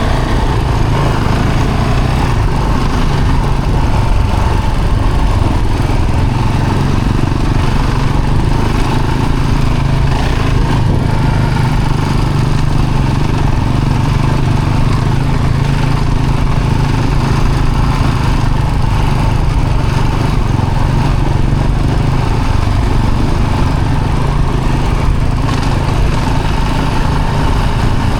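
Vehicle engine running steadily while driving, a loud even low drone with no change in revs.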